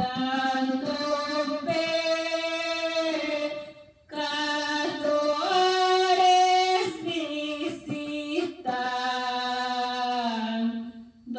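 A woman singing a Spanish-language Christmas praise song into a handheld microphone, in long held notes, pausing briefly about four seconds in and again near the end.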